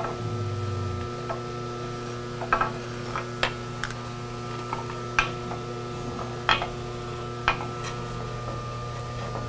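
Scattered light metallic clicks and taps, about eight or nine over several seconds, as small steel tools work against metal while the broken-off tang of a thread insert is fished out of the tapped hole. Under them runs a steady machine hum.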